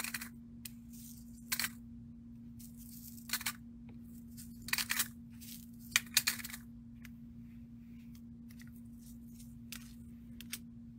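Clear trays of glass seed beads being slid and set down on a table, making short clicks and bead rattles every second or so, with the loudest pair about six seconds in. A steady low hum runs underneath.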